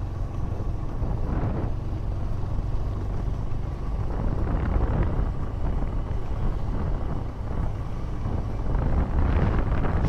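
Motorcycle engine running at a steady cruise of about 40 km/h, a continuous low drone with wind buffeting the microphone.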